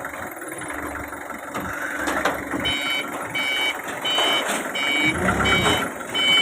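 A vehicle's reversing alarm beeps in an even repeating pattern, about two to three beeps a second, starting a little under three seconds in, over a running engine.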